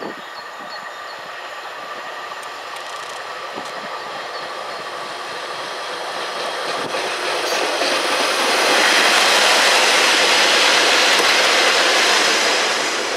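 Two-car Pacer diesel railbus approaching and passing at close range, growing steadily louder to a peak in the last few seconds, then starting to fade near the end.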